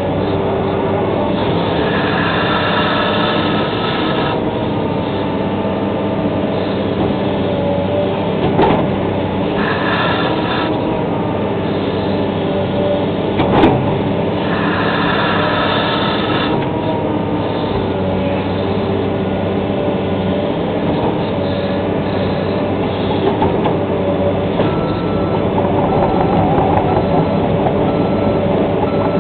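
Excavator's diesel engine running steadily, with a higher whine of the hydraulics coming in for a few seconds at a time and two sharp knocks partway through.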